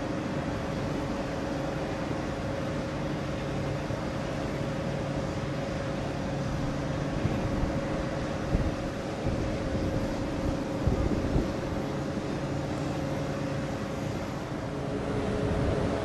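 Steady drone of aircraft on an airfield: a noisy rush with a few constant tones held through it, and some short low thumps between about 7 and 11 seconds in. The tones shift to different pitches near the end.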